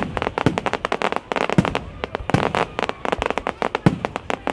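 Fireworks display: dense, rapid crackling and popping from shells bursting overhead, with four deeper bangs standing out among them.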